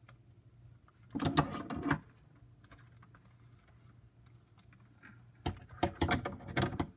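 Clear packing tape being pulled off its roll in two bursts of rapid crackling: a short pull about a second in and a longer, stop-start pull near the end.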